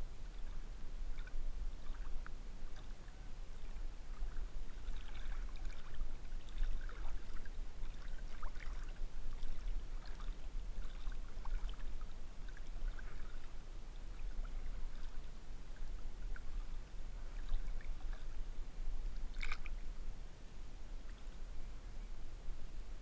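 River water lapping and splashing around a camera held at the surface during a swim, with a low steady rumble and scattered small splashes. One sharper splash comes near the end.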